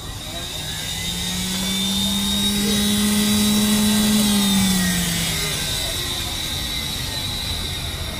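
Electric juicer running with a steady high whine. Its deeper motor hum comes in about a second in, swells, and falls away after about five seconds as produce is pressed down the feed chute.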